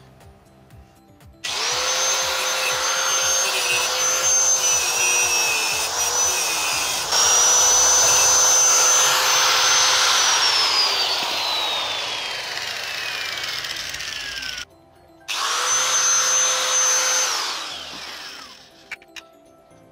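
Electric angle grinder with a cutting disc starting up and running at a high whine, cutting metal, then switched off and winding down with a falling pitch. It starts again a few seconds later for a shorter run and winds down again.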